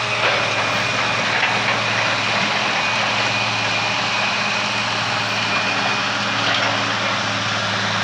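Diesel engines of heavy demolition machinery running steadily at a constant pitch, with a faint high whine that drops out near the end.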